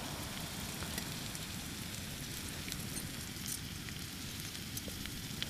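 Boiled potatoes frying in a pan on a camping gas stove: a steady sizzle with a few faint crackles.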